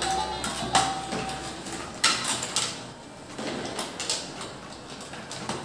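A battery-powered toy fishing game's electronic tune and low motor hum cut off about a second and a half in. Several sharp plastic clicks and knocks follow as the toy and its little fishing rods are handled.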